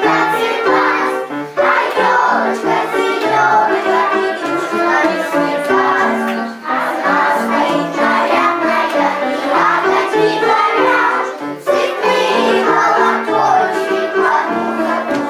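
A children's song playing, with young voices singing the melody over a backing track with a steady beat.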